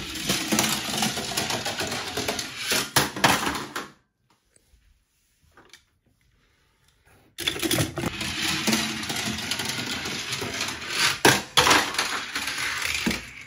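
Die-cast Tomica toy ambulance rolling along plastic Tomica track, a dense rattle with sharp clicks. It stops about four seconds in and starts again about three seconds later.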